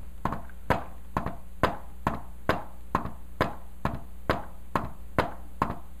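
A hand knocking on a whiteboard, about two sharp knocks a second, tapping out the rhythm of a fourth heart sound (S4 gallop: S4, S1, S2).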